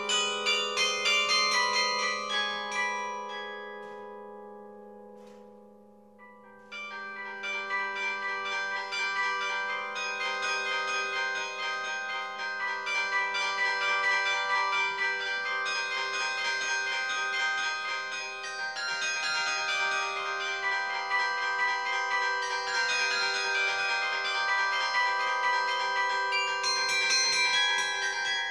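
Carillon bells played from the baton keyboard. A phrase ends about two seconds in and the bells ring on, fading away, then playing resumes about seven seconds in with fast runs of notes that continue.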